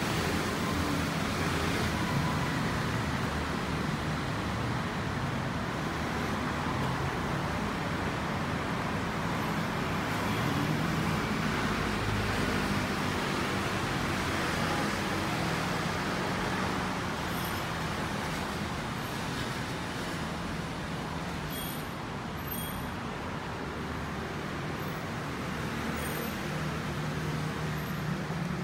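Steady road traffic noise on a city street: a continuous rumble and hiss of passing motor vehicles, easing off slightly about two thirds of the way through.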